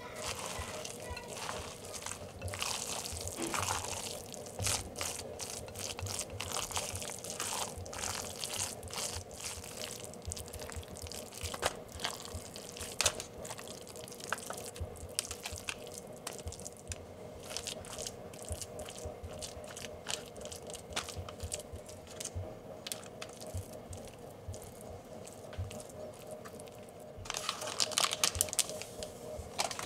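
Spatula stirring and scraping a thick, wet batter of grated carrot and raisins in a glass bowl, with many small clicks and scrapes against the glass. The batter is then scooped into a parchment-lined baking pan and spread flat, with a denser flurry of scraping near the end.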